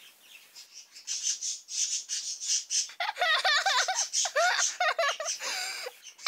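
High-pitched giggling: quick breathy bursts of giggles, then squeaky, wavering laughter from about halfway through.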